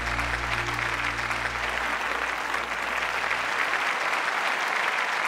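Studio audience applauding steadily as a song ends, with the accompaniment's last low sustained chord dying away about three and a half seconds in.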